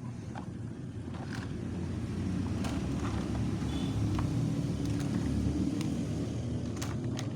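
Low motor-vehicle rumble that swells through the middle and then eases off, with a few light clicks on top.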